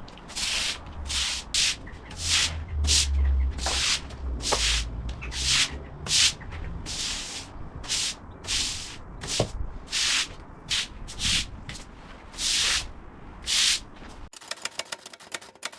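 Stiff brush scrubbing patio paving in separate strokes, about one and a half a second. Near the end the strokes become a quicker run of short scrapes.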